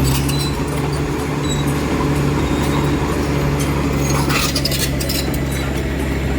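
Heavy diesel engine running steadily at a low, even pitch. A short run of metallic clinks comes about four seconds in.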